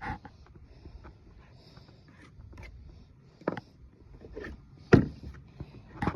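A few sharp knocks and clicks over a quiet background, the loudest about five seconds in.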